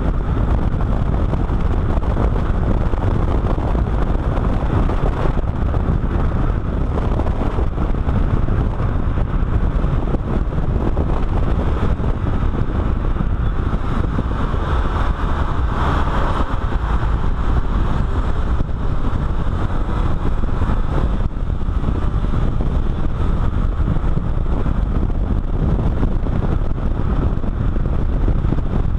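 A car driving at speed: steady tyre and road noise and wind rushing over a microphone mounted low on the car's side beside the front wheel, with a brief swell in the noise about halfway through.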